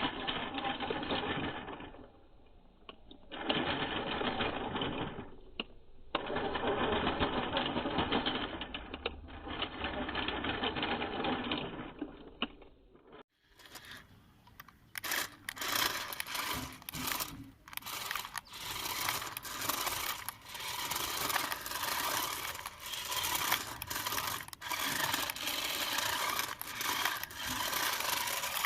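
Toy RC rock crawler's small electric motor and gears whirring in runs of a few seconds with short pauses. About halfway, after a cut, a busier scraping and crackling sound full of sharp clicks takes over.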